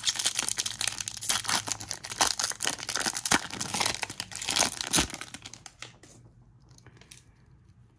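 Plastic trading-card pack wrapper being torn open and crinkled, a dense crackling that dies down about six seconds in, with one low thump about five seconds in.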